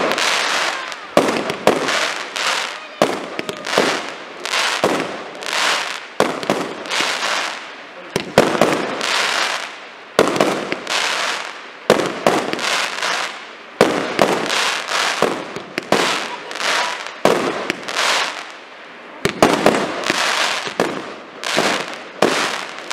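Aerial fireworks bursting in quick succession, about one bang a second. Each bang is followed by a fading hiss and crackle of falling stars.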